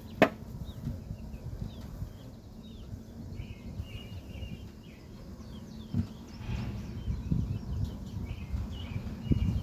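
Wind buffeting the microphone in a low, gusting rumble, with birds chirping in the background. A single sharp click sounds just after the start.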